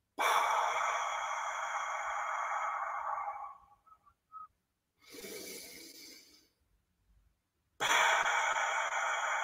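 A man's deliberate, audible deep breaths, in through the nose and out through the mouth, a "half Darth Vader breath". There is a long loud breath of about three seconds, a softer shorter one, and another loud breath starting near the end.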